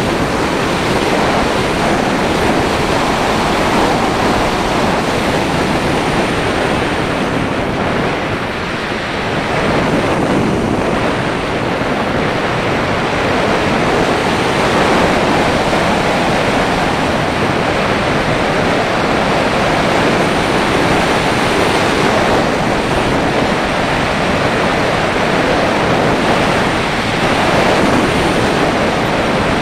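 Rushing airflow over a HawKeye Firefly Q6 action camera on the nose of a slope glider in flight, a steady loud hiss of wind on the microphone with no motor sound, easing briefly about eight seconds in.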